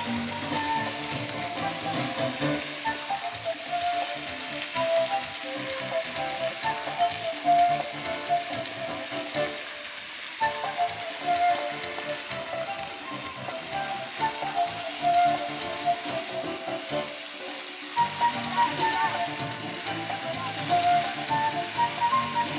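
Fountain water jets spraying and splashing into a pond with a steady hissing patter, with a melody playing over it.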